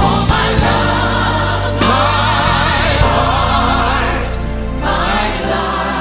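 Music: a choir singing a gospel song, voices held in long wavering notes over steady bass.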